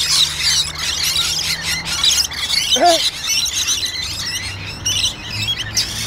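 Rainbow lorikeets fighting, giving a continuous shrill, harsh screeching chatter, with one lower call about three seconds in.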